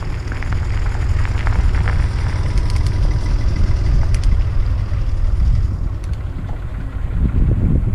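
Wind buffeting the microphone of a mountain bike rider's helmet camera during a fast descent: a loud, steady low rumble that builds over the first second, with scattered small clicks and rattles from the bike and tyres.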